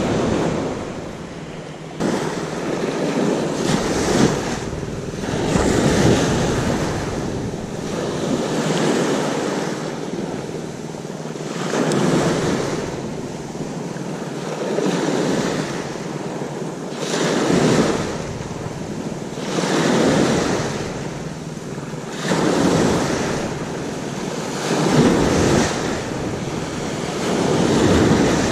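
Sea waves breaking and washing up the shore in a steady rhythm, each surge swelling and fading every two to three seconds, with wind buffeting the microphone.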